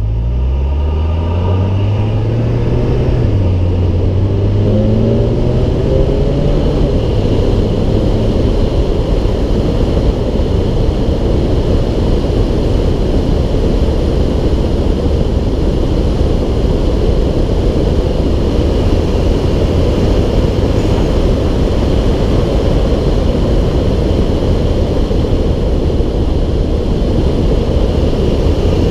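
2017 VW GTI's turbocharged 2.0-litre four-cylinder with aftermarket CTS Turbo exhaust and intake accelerating hard. The pitch climbs, drops at a quick DSG upshift about three seconds in, and climbs again. It then settles into steady high-speed running, mostly wind and tyre roar over the engine drone.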